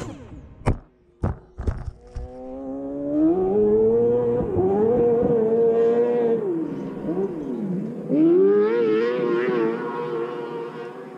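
A few sharp knocks, then a motor revs up and holds a high, steady pitch. About two-thirds through, the pitch swoops down and back up, and then it revs up again.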